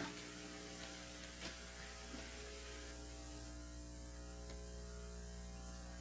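Steady electrical mains hum from the audio system, with a few faint soft ticks in the first couple of seconds.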